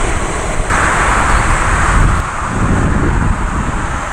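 Boeing 787-8 jet engines running, a broad rushing noise with a deep rumble and wind buffeting the microphone. About a second in it jumps louder and brighter, and it drops back after about two seconds.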